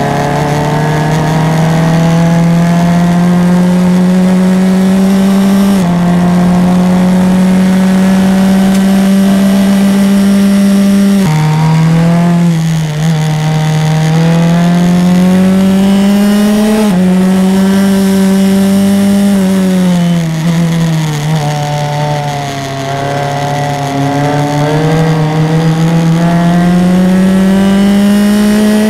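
Formula 2000 open-wheel race car's engine at racing speed, heard from on board: revs climb steadily under full throttle. The engine note drops and wavers as it brakes and downshifts for corners about 12 and 21 seconds in, then climbs again.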